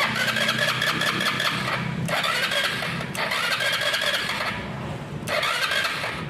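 Motorstar Easyride 150 motorcycle's electric starter cranking the engine in three separate attempts, each opening with a rising whine, without the engine catching. This is a hard start, which the mechanic traces to water and dirt in the carburetor.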